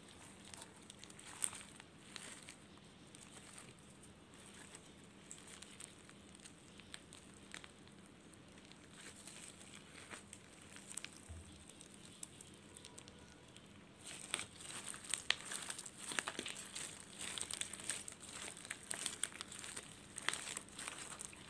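Red glitter slime packed with foam beads being squeezed and kneaded by hand, giving a run of small crinkly crackles and pops. The crackling gets louder and busier about two-thirds of the way through.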